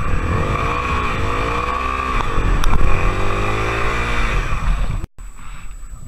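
Honda Tornado XR250's single-cylinder four-stroke engine revving up and down several times. The sound breaks off briefly about five seconds in and comes back quieter.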